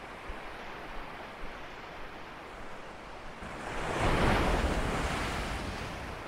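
Sea waves washing against a rock seawall, with one wave breaking on the boulders a little past halfway: a swelling rush that peaks and slowly fades away.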